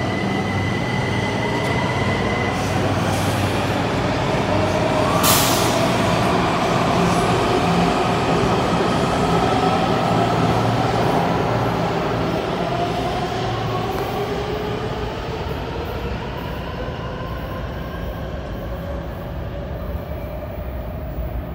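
Washington Metro Blue Line train pulling out of the station. A sharp hiss comes about five seconds in. The traction motors then whine, rising in pitch as the train gathers speed, and the sound fades as it draws away.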